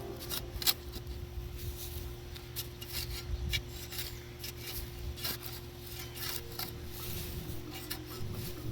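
Hand garden tools at work on a rose bush's woody stems and roots: irregular sharp clicks and scrapes, one or two a second.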